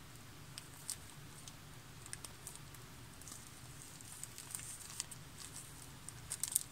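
Faint handling noise of small packets of pearls: scattered soft clicks and crinkles as the packets are picked up and turned over, over a low steady room hum.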